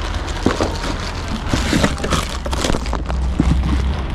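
Plastic wrapping crinkling and cardboard packaging rustling as a security camera is pulled out of its box, a string of irregular crackles and clicks over a steady low rumble.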